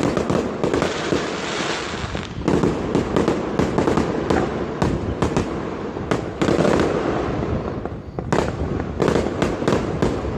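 Dense barrage of New Year fireworks and firecrackers: many sharp bangs over a continuous crackling din. It thins briefly about eight seconds in, then the bangs pick up again.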